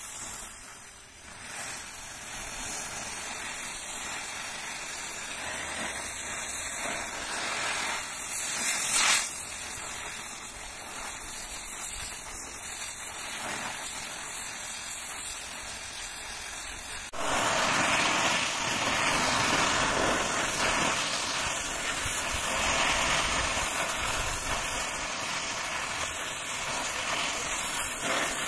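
Oxy-fuel cutting torch flame hissing steadily as it heats a steel twist drill bit toward red heat for hardening. The hiss gets louder and fuller about two-thirds of the way through.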